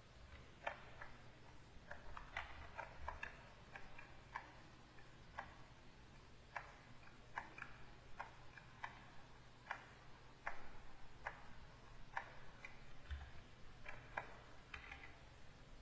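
Faint, irregular clicks and taps of a pen stylus on a graphics tablet as brushstrokes are laid down, some coming in quick clusters, over a low steady hum.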